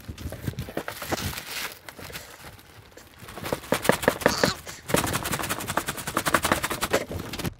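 Thick plastic bag sealed around foam packing crinkling and crackling as it is handled, a rapid run of sharp crackles that grows denser partway through and stops just before the end.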